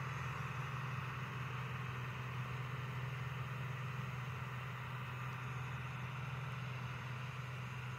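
Claas Dominator 58 combine harvester running steadily at work: a constant low engine drone with an even hiss above it.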